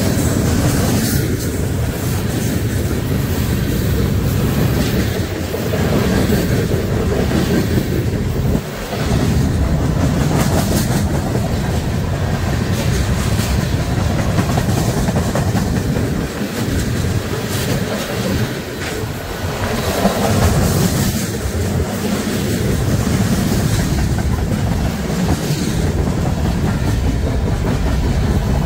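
A train rolling past with a steady rumble, its wheels clicking over the rail joints at irregular intervals.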